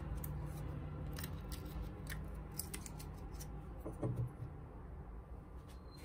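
Angle grinder armature and stator handled by hand: a run of light metallic clicks and scrapes as the armature is slid out of the stator, with a soft thump about four seconds in, over a low steady hum.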